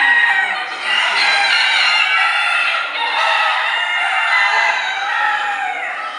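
Many chickens calling at once, roosters crowing over one another with clucking mixed in, a dense chorus that never stops.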